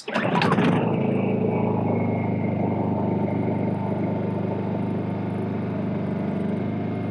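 Honda 2000 portable inverter generator, a small single-cylinder four-stroke, starting up with a sudden burst and then running at a steady, even drone.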